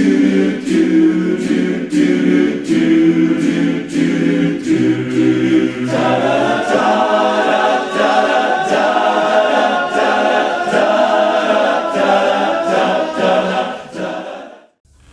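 Voices singing a cappella in harmony over a steady beat of about two strokes a second. The voices move up to a higher register about six seconds in and cut off abruptly just before the end.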